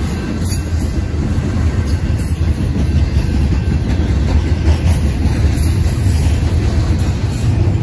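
Double-stack intermodal container train rolling past, a steady low rumble of its well cars' wheels on the rails.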